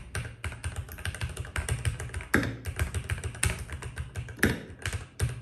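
Typing on a Keychron V1 mechanical keyboard with Keychron K Pro Brown tactile switches: fast, irregular keystroke clacks, with a few louder strokes among them.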